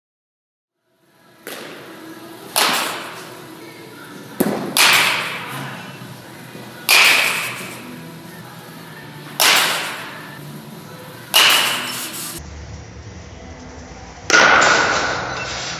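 Bat hitting tossed baseballs in a batting cage: a sharp crack with a short ringing ping about every two seconds, seven or eight swings in all, two in quick succession around the middle.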